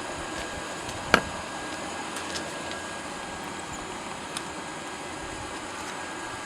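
Steady rushing noise of a blacksmith's forge fire, with one sharp, ringing strike of metal on metal about a second in and a couple of faint clinks later.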